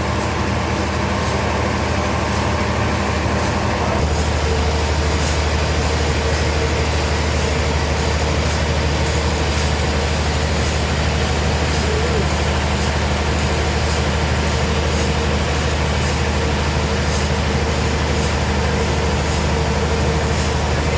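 Heavy sawmill machinery running steadily: a loud, constant low drone and hum. About four seconds in, it steps up louder and a steady mid-pitched tone joins in.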